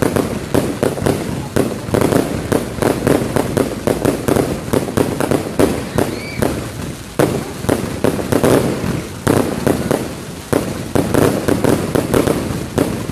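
Fireworks display: a dense, continuous barrage of bangs and crackling shell bursts, several a second, with louder clusters of blasts throughout.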